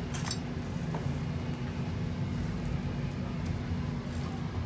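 Steady low machine-like hum with a constant low tone under it, and a few light metal clicks, the clearest just after the start: tongs and gloved hands working fried chicken pieces on a steel wire rack.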